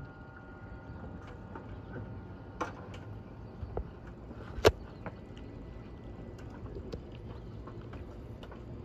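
Quiet room sound as the band's held last chord dies away, with scattered small knocks and clicks; the loudest is a single sharp click a little past halfway.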